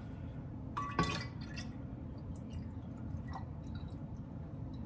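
Jellied beef bone broth pouring out of a glass jar into another glass jar, sliding and plopping softly in the glass, with a light glass clink about a second in. A low steady hum underneath.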